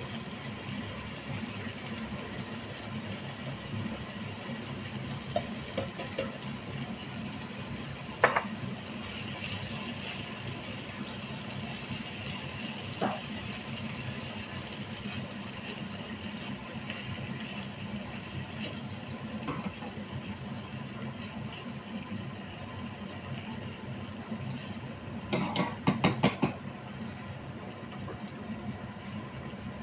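Tomato sauce cooking in a frying pan on a gas stove with a faint hiss over a steady low hum, as a spatula stirs it. The spatula knocks against the pan a couple of times, then several times in quick succession near the end.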